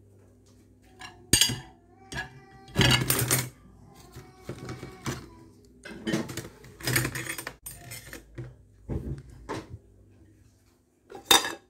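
Dishes and utensils clattering in a plastic dish rack: a run of sharp knocks and rattles, loudest about three seconds in and again near the end, over a faint steady low hum.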